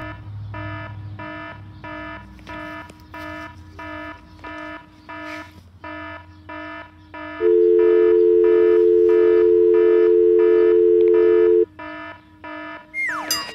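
Electronic alarm-style beeping, about two beeps a second, each beep several tones at once. A loud, steady, unbroken tone sounds over it for about four seconds in the middle. A short falling tone comes near the end.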